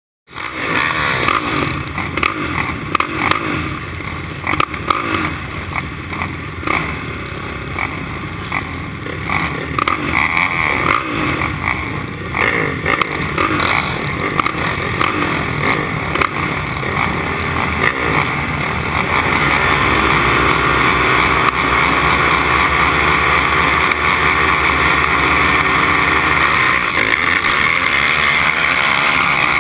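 Four-stroke racing quad engines: irregular blipping and revving at first, then from about twenty seconds in a louder, steady hard run with the engine climbing through its revs as the quads race.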